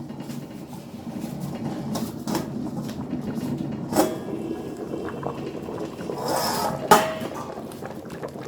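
Metal pot and lid knocking twice, sharply: once about four seconds in, and a louder clank near seven seconds, just after a brief hiss. Under the knocks runs a steady low rumble from the pot of yam boiling on the fire.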